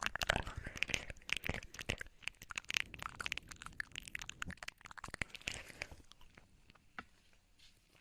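ASMR mouth sounds close to the microphone: a fast run of wet lip and tongue clicks and smacks, thinning out to scattered clicks over the last couple of seconds.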